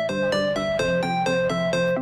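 Background music: a rapid run of bright keyboard notes, about four or five a second.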